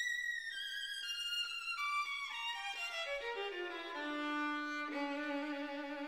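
Background music: a solo violin-like melody stepping down from high notes to low ones, then settling on a long held low note from about four seconds in.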